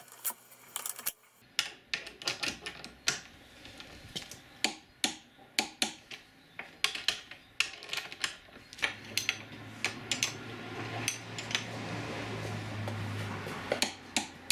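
Ratcheting torque wrench clicking in short irregular runs as it is swung back and forth to tighten tow-bar mounting bolts towards 50 Nm, with a spanner clinking against the nut. A low steady hum sits underneath for a few seconds past the middle.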